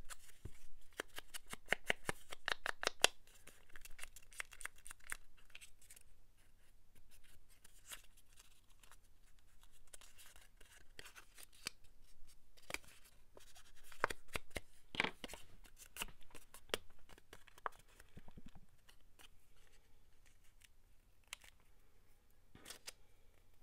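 Paper being cut with scissors: a quick run of short snips and clicks at first, then scattered snips and the rustle of paper being handled.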